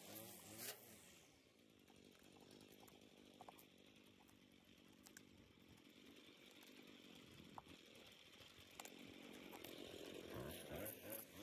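String trimmer running, its spinning line cutting grass. It is faint at first and grows louder toward the end.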